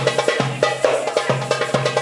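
Darbuka (Middle Eastern goblet drum) played live in a fast rhythm: deep, booming dum strokes about twice a second, with quick, sharp tek strokes rattling between them.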